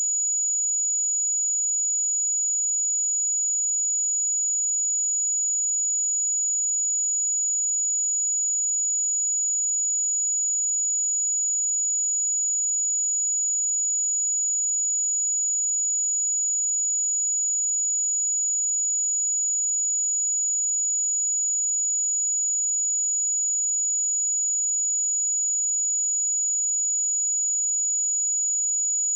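A pure 6881 Hz sine-wave test tone held steady, a single high-pitched whistle-like tone at constant loudness.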